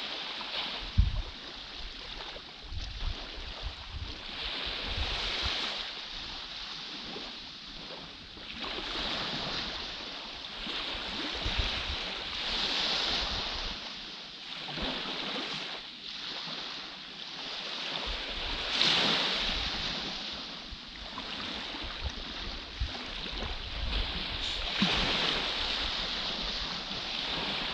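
Small waves washing up a sandy beach, rising and falling in surges every few seconds, with wind rumbling on the microphone and one sharp bump about a second in.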